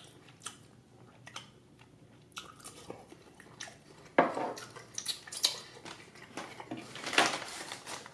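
Close-miked chewing and biting on a mouthful of tomahawk steak, with scattered small clicks; it gets louder about halfway through.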